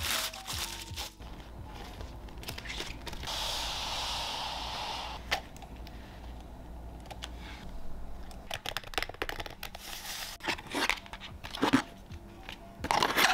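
Close handling of plastic packaging and boxed parts: crinkling plastic wrap, a hiss lasting about two seconds a few seconds in, then scattered sharp clicks and taps, loudest near the end.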